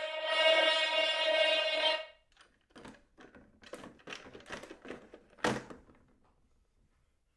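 Small blue plastic horn blown in one steady, unchanging note that stops about two seconds in. It is followed by a scatter of clicks and knocks from hands handling plastic objects, the sharpest about five and a half seconds in.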